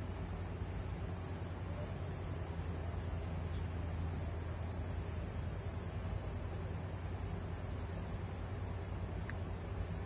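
Steady high-pitched insect trilling, cricket-like, over a low steady hum. No distinct soldering or tool sounds stand out.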